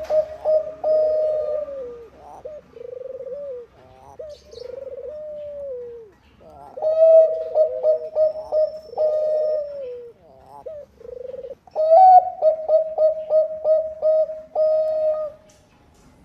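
Bangkok-strain zebra dove (perkutut) cooing in repeated rolling phrases with short pauses between them, ending in a run of quick, clipped coo notes.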